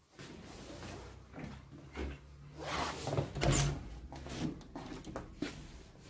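A wooden interior door being handled and swung as someone walks through it: a series of knocks and scrapes over a low rumble, the loudest about three and a half seconds in.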